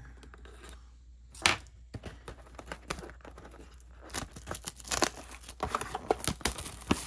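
Clear plastic shrink wrap on a trading-card blaster box being slit and torn off, crackling and crinkling. There is one sharp rip about a second and a half in, and denser crinkling and tearing from about four seconds on.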